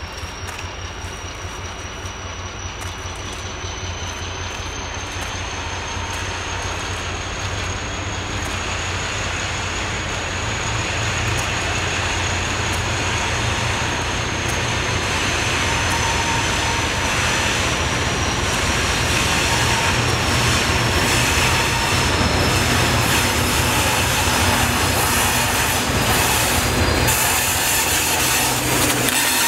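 Diesel locomotive hauling a freight train toward the listener, its engine drone growing steadily louder, with a thin high wheel squeal held through much of the approach. Wheels clicking over rail joints as it draws close near the end.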